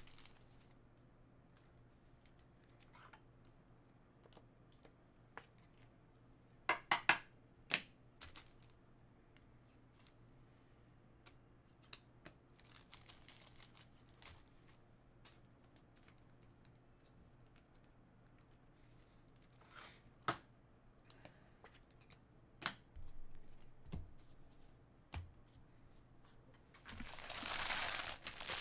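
Baseball trading cards being handled on a table: sparse light clicks and taps, with a short cluster about seven seconds in, then a louder, continuous rustle of cards and packaging starting near the end.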